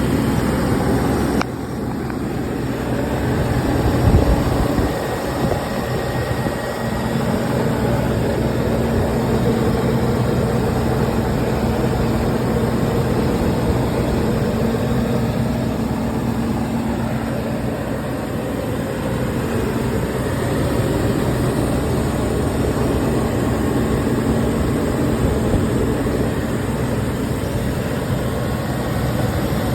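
Land Rover Discovery 1's 4.0-litre V8 idling steadily, with a misfire on cylinder one that the owner says hardly shows in how it sounds. The level drops slightly about a second and a half in.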